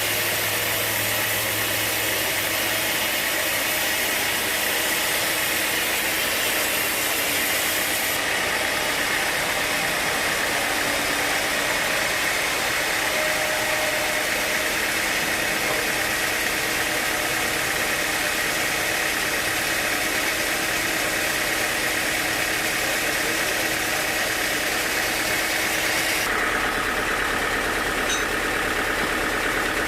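Sawmill machinery running steadily, a constant engine-like drone with a high whine, its tone shifting slightly a few times.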